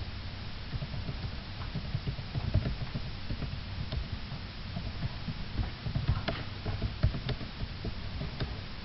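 Irregular soft thumps and scattered short clicks, with a few sharper clicks in the second half.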